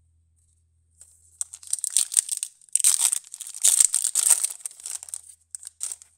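An Upper Deck MVP hockey card pack's foil wrapper being torn open by hand, crinkling and crackling in a run of sharp rustles. It starts about a second in, is loudest in the middle and thins to a few last crinkles near the end.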